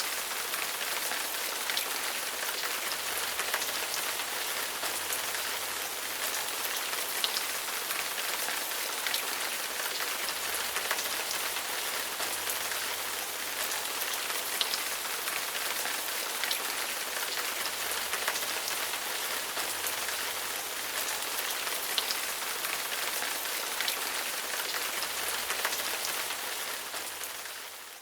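Steady rain falling: a dense, even hiss with scattered louder drop hits, fading out near the end.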